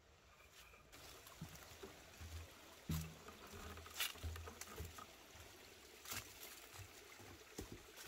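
Faint footsteps crunching and rustling in dry fallen leaves on a forest path, with irregular crackles roughly once a second.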